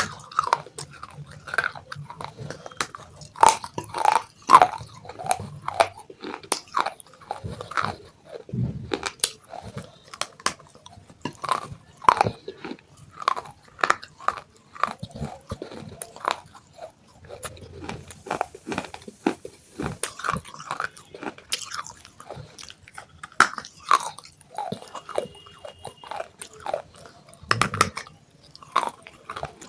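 Biting into and chewing broken pieces of fired clay pot, a continuous irregular run of sharp, dry crunches.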